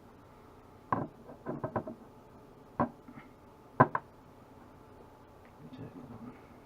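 Metal hand tools being handled and put down on a hard surface: a few sharp, irregular knocks and clacks, the loudest about four seconds in, followed by faint handling rustle.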